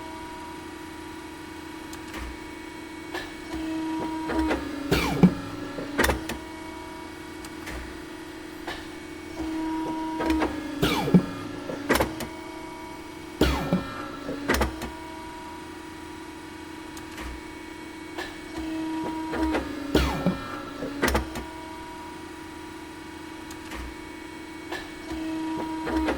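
Industrial cutting machine running with a steady hum and a held tone. Clusters of sharp clicks and knocks come every few seconds as it works through its cutting cycle.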